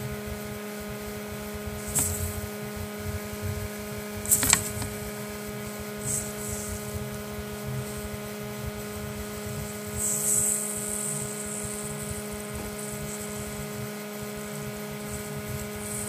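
Goliath birdeater tarantula stridulating: a few short, faint hisses, about 2, 4.5, 6 and 10 seconds in, made when the spider is prodded, a defensive warning. A steady electrical hum runs underneath throughout.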